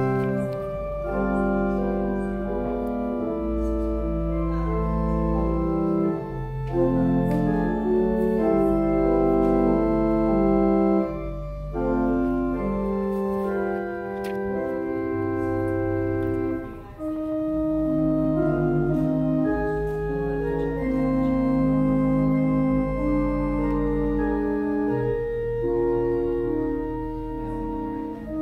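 Organ music: slow, sustained chords held over a deep, continuous bass line, with a brief break between phrases about two-thirds of the way through.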